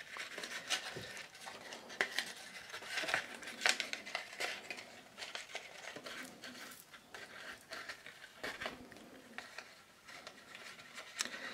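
Faint rustling of paper and ribbon with small irregular clicks as hands tie a ribbon bow around a folded paper package.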